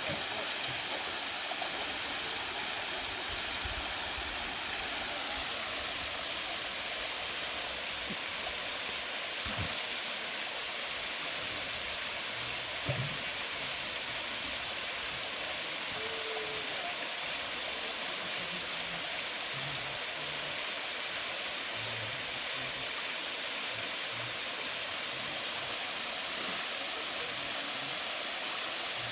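Waterfall rushing steadily into a pool: an even, unbroken wash of falling water.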